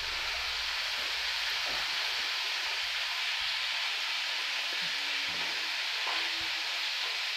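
Steady hiss of recording background noise, with faint short tones coming in from about four seconds in.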